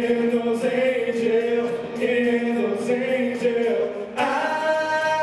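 Two male voices singing into handheld microphones over a backing track with a steady beat. A little over four seconds in, the music cuts abruptly to a new section of held chords.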